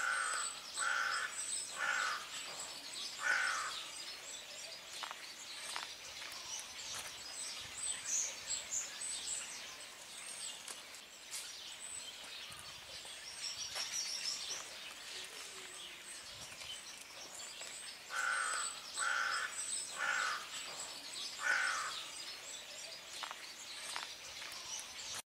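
A bird calling four times in quick succession at the start, and again in another run of four about eighteen seconds in, over small birds chirping high and thin throughout.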